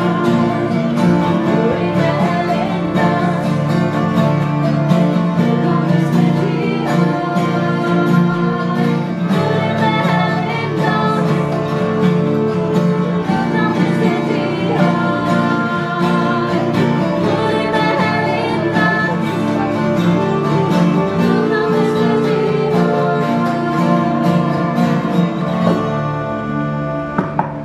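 Live acoustic folk music: strummed acoustic guitars with a tin whistle, a hurdy-gurdy and women singing. The song winds down and ends near the end.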